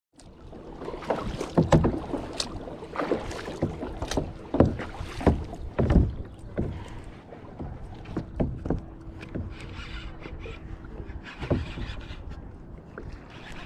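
Kayak on the water: irregular knocks, thumps and splashes against the hull, with a faint steady hum underneath.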